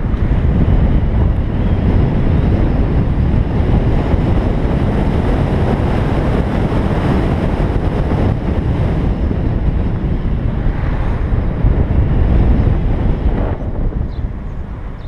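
Wind buffeting the microphone and road and tyre rumble from a BMW i3s electric car driving along, with no engine note. The rushing eases near the end.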